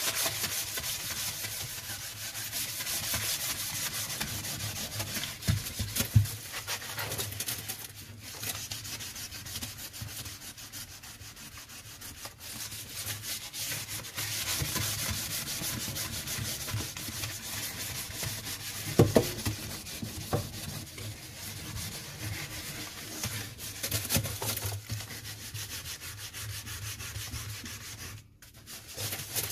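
A wadded ball of damp aluminium foil scrubbed back and forth over a stainless steel sink, a continuous scratchy rubbing, with a couple of sharp knocks against the sink. The foil works like a very fine sandpaper, scouring off limescale.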